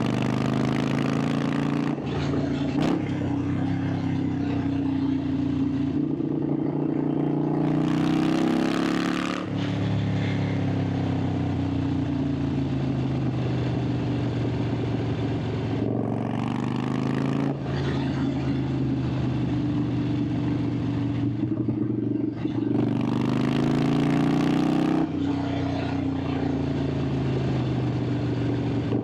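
Harley-Davidson Sportster 883's air-cooled V-twin exhaust heard from the rider's seat under way: the engine note climbs and falls repeatedly as the throttle is worked, broken by short dips at gear changes several times.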